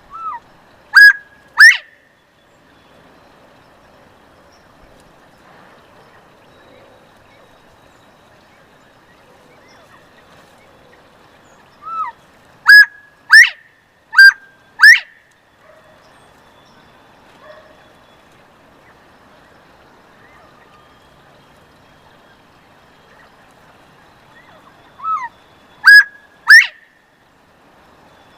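Northern bobwhite quail calling its whistled "bob-white": a soft falling note, then two clear loud whistles, the second sliding upward. One call comes near the start, two follow in quick succession around the middle, and one comes near the end.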